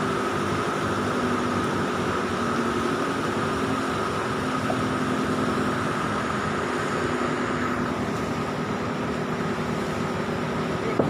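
Toyota Avanza four-cylinder car engine in a jet boat idling steadily while the boat sits aground in the shallows, over the steady rush of the river.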